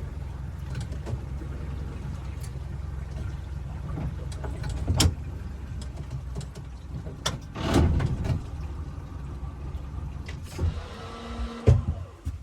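Small boat's outboard motor running at low speed with a steady low hum, a few knocks from the hull or gear, and the motor stopping at the very end.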